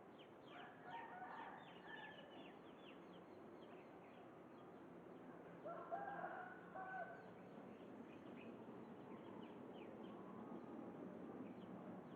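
Outdoor bird calls: two pitched, broken-up calls about a second long, one near the start and one about six seconds in, over a scatter of quick, high, falling chirps from small birds.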